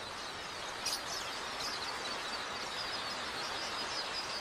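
A huge flock of red-billed quelea chirping together: a dense, steady chatter of countless small calls.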